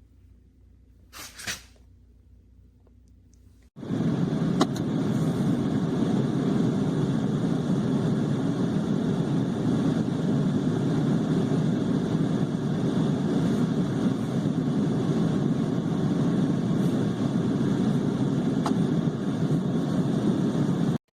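Steady running noise of a vehicle, probably the 2006 Chevrolet Trailblazer, starting suddenly about four seconds in after near quiet broken by one brief swish, then holding even until it cuts off at the end.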